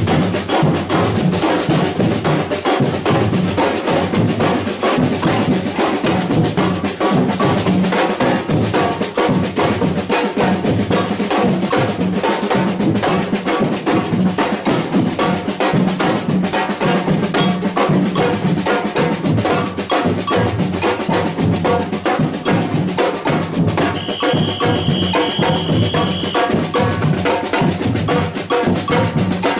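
A batucada samba drum group playing a dense, driving rhythm on bass drums, snare drums and bells. About 24 seconds in, a high steady tone sounds over the drums for about two seconds.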